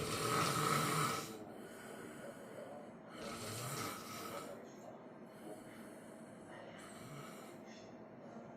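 A sleeping person snoring: a loud raspy snore in the first second, another about three seconds later, then weaker snoring breaths near the end.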